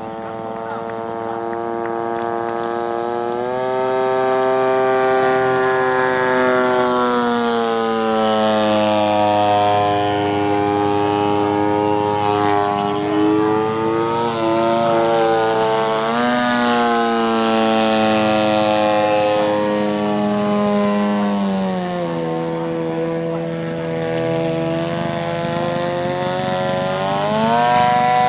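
Radio-controlled model airplane's engine and propeller running in flight, its pitch rising and falling with throttle and passes. It climbs about three seconds in, sags gradually, dips and swings back up sharply about halfway through, and rises steeply again near the end.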